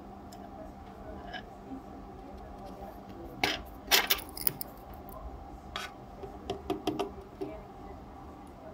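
Small metal clinks and taps of a screwdriver and a small screw being handled and set down on a wooden tabletop: a quick cluster of clinks about halfway through, then a few lighter taps. A faint steady hum lies underneath.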